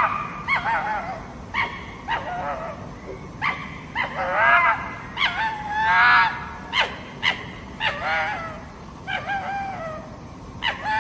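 Fox calling: a long irregular series of short, high-pitched barks and yips, about a dozen of them, some drawn out into brief whines.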